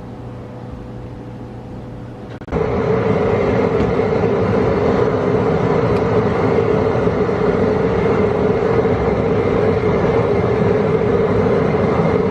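A quiet steady hum, then, from about two and a half seconds in, an outdoor gas burner firing hard under a shrimp-boil pot at the boil: a loud, steady rushing hiss with a hum in it.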